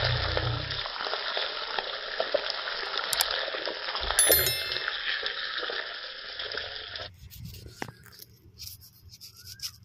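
Fish pieces frying in hot oil in a blackened pan over a wood fire: a steady sizzle with small crackles, which cuts off abruptly about seven seconds in. A short bell-like chime sounds about four seconds in. After the sizzle stops, faint small scrapes and ticks come from a knife peeling an onion.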